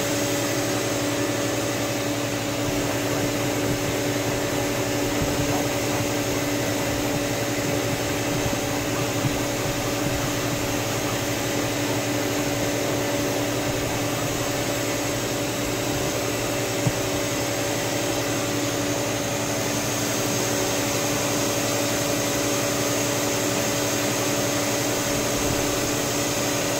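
Electric motor of a cleaning machine running steadily, a vacuum-like drone with a constant hum under it, and a single brief click about seventeen seconds in.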